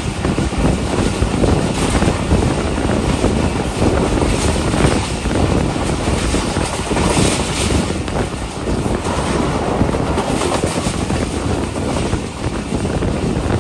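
Passenger train coach running along the track: a steady, loud rumble of wheels on rails, with wind from the open coach door buffeting the microphone.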